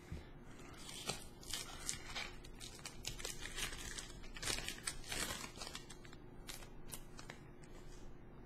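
Foil wrapper of a Pokémon booster pack crinkling and tearing as it is opened by hand, with quick crackles and small clicks; the sounds thin out to a few faint ticks in the last couple of seconds.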